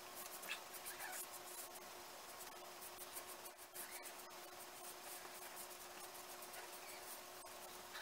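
Faint, scratchy strokes of a Phoenix Bakelite open-comb slant safety razor, with a new Astra blade, cutting lathered beard stubble across the grain. The strokes are thickest in the first few seconds and sparser later.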